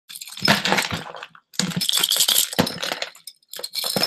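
Jumbled jewelry pouring out of a glass jar into a bucket: a clattering, clinking rush of beads and metal pieces that comes in three pours with short breaks between.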